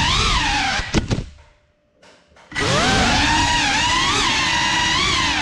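GEPRC Cinelog35 cinewhoop's brushless motors and propellers whining, the pitch wavering with throttle. About a second in it clips something with two sharp knocks and the motors cut out to near silence. About two and a half seconds in they spool back up with a rising whine, recovering from the crash, and keep running.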